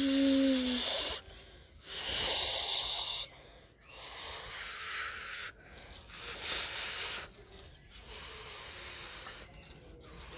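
Breathy, hissing whooshes made with the mouth, imitating a jet airliner's engines. They come in about five bursts of a second or so each, with short breaks for breath between them.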